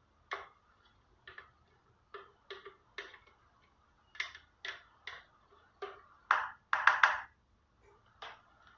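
Light, irregular taps and clicks of a kitchen utensil against a blender jar and cake pan, with a few longer scrapes about six to seven seconds in, as cake batter is emptied out into the pan.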